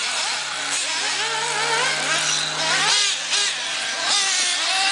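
Several 1/8-scale nitro RC buggies running the track, their small glow engines revving up and down at high pitch in overlapping waves as the cars accelerate and brake through the corners.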